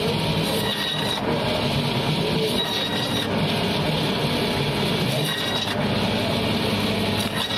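Band saw running steadily, its blade cutting through pieces of katla carp as they are pushed into it.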